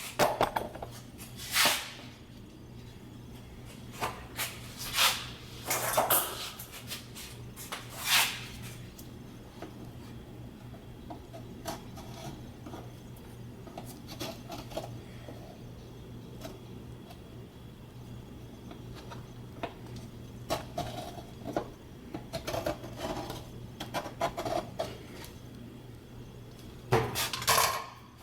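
Scattered clicks, knocks and light clatter of tools and a board being handled and set down, with occasional rubbing, over a steady low hum.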